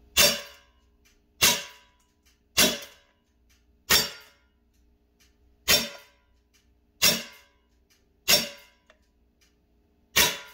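Umarex SA10 CO2 pellet pistol fired eight times in a slow, uneven string, each shot a sharp crack that fades quickly.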